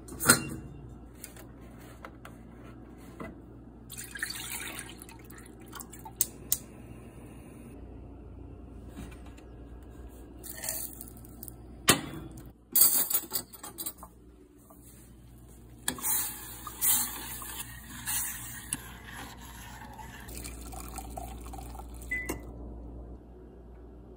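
Kitchen sounds: a metal saucepan lid clanks on the pot at the start, followed by a few sharp clinks and stretches of water pouring and splashing.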